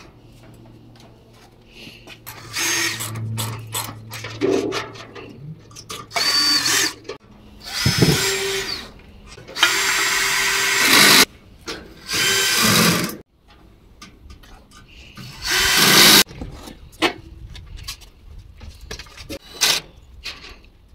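Power drill driving assembly screws into a gas barbecue, in about seven short runs of a second or so each, with light clicks and knocks between runs.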